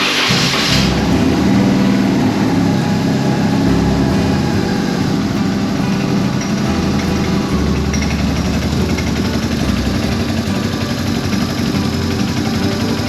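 BMW R1150R's air/oil-cooled boxer twin engine running at idle with the abnormal noise and vibration that the owner fears may be a seizure (焼き付き).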